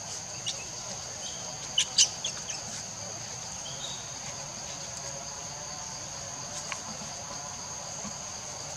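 Steady, high-pitched insect chorus: a shrill drone in two pitches. Two sharp clicks about two seconds in stand out as the loudest sounds.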